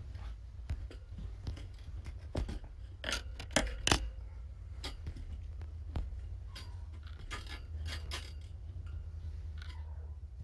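Scratchy clicks and rustles from kittens scrabbling and playing right at a floor-level microphone, with a kitten's fur brushing against it. The sounds are loudest and thickest between about three and four seconds in, over a steady low hum.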